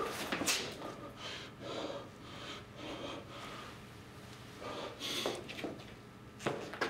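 A person breathing heavily and snorting in short, irregular bursts.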